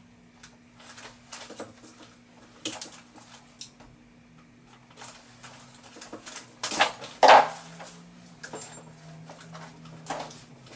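Pliers or wire strippers clicking and scraping on electrical cable as it is worked by hand, in scattered small clicks. A louder scrape comes about seven seconds in. A faint steady hum runs underneath.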